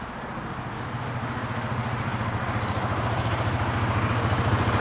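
A vehicle engine idling with a steady low throb, growing gradually louder.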